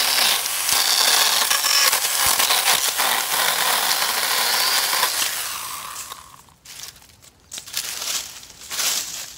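Stihl cordless handheld pruning saw running and cutting through multiflora rose stems with a steady high buzz, winding down with a falling pitch about six seconds in. After that come a few short crackles and snaps as cut stems and dry leaves are handled.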